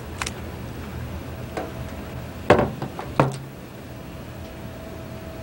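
A few sharp knocks, the two loudest about two and a half and three seconds in, over a steady low hum.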